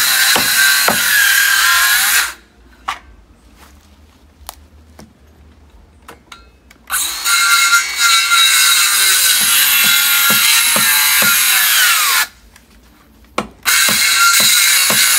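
Cordless jigsaw cutting a wooden board in three runs: it stops about two seconds in, starts again around seven seconds, stops near twelve seconds and starts once more near the end, with faint clicks while it is off.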